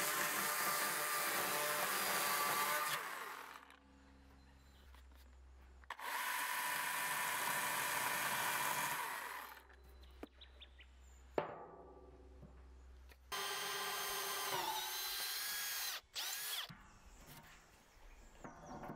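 Husqvarna chainsaw cutting through the end of a length of timber for about three and a half seconds, followed by two more runs of a power tool, likely a drill boring a hole into the timber, the last run dipping in pitch as it loads up, with knocks of the wood being handled in between.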